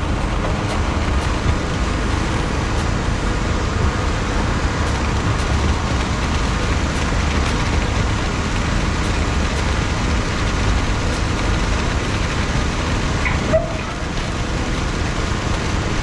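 Heavy construction machinery, a diesel bulldozer, running steadily with a continuous low rumble.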